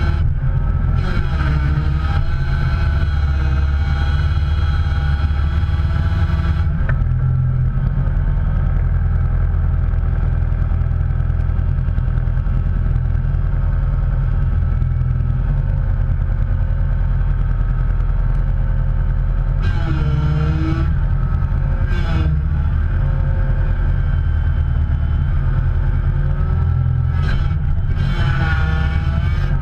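A motor vehicle's engine running loudly and steadily, its pitch swinging up and down briefly a few times.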